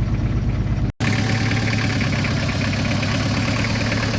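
Diesel lorry engine idling steadily after a repair, with an even low rumble and clatter; the sound cuts out for an instant about a second in, then the idle carries on. The mechanic calls the sound nice.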